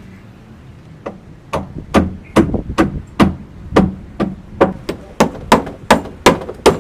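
Repeated sharp hammer blows, starting about a second in and settling to roughly three strikes a second.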